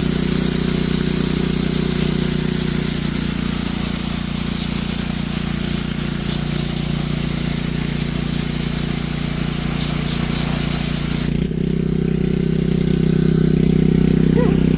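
Gas pressure washer engine running steadily while water sprays through the snow foam lance with a high hiss. The spray stops about eleven seconds in, and the engine keeps running.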